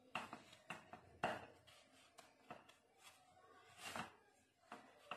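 Faint rustling, scraping and a few light taps of hands rolling a mashed-potato cutlet ball in semolina in a steel dish.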